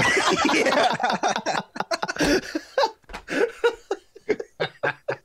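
Several men laughing together over headset microphones. The laughter is dense and loud at first, then breaks into short chuckles and snickers that die down toward the end.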